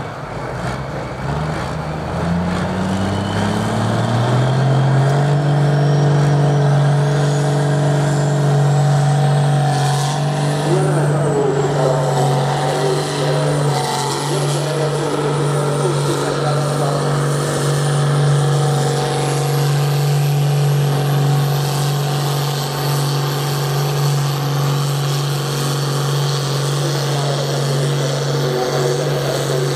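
John Deere farm tractor's diesel engine revving up over the first few seconds, then running at a steady high rev under load as it drags a tractor-pulling sled. A thin high whistle wavers over it.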